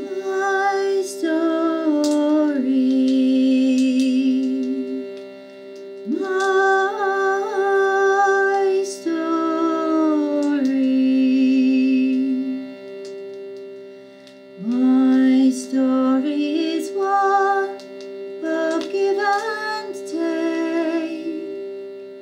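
A woman singing slow, drawn-out phrases over a steady held drone, with short breaks between the phrases.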